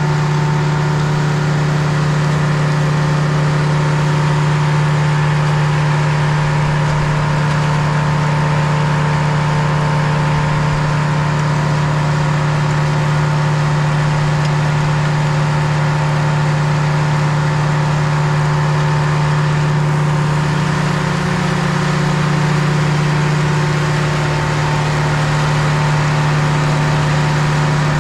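Sawmill engine running steadily at constant speed, as it would while the log is being sawn.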